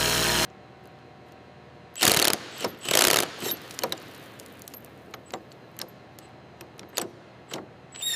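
A running machine cuts off suddenly about half a second in, followed by two loud clunks about a second apart and a string of sharp mechanical clicks and ticks, like tools and parts being worked by hand.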